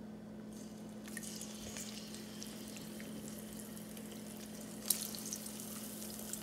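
Cornmeal-battered lobster tails going into hot oil in a pot and deep-frying: oil sizzling and crackling with many small pops, starting about a second in, with one sharper pop near the end. A steady low hum runs underneath.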